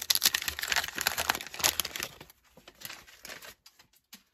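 Waxed-paper wrapper of a 1987 Fleer baseball card pack being torn open and crinkled by hand, dense crackling for about two seconds, then a few scattered crinkles.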